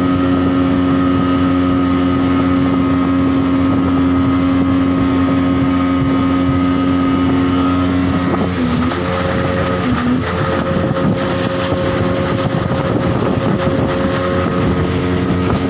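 Outboard motor of a small open boat running steadily underway. Its pitch dips briefly twice, about eight and ten seconds in, with more noise of wind and water in the second half.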